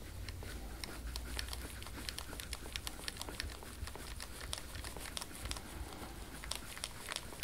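Hands rubbing and pressing over skin and clothing during deep tissue massage: rapid, irregular crinkling and clicking over a low steady hum.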